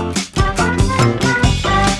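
Upbeat background music with a steady drum beat.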